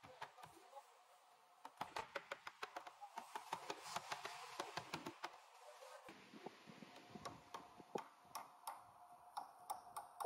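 Quick light clicks and taps of wood on wood as a wooden door panel is handled and pressed into the door frame, dense for a few seconds, then sparser.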